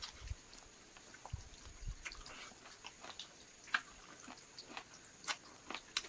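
Close-up chewing and mouth sounds of someone eating chicken: irregular wet clicks and smacks, with sharper ones a little before four seconds and just past five.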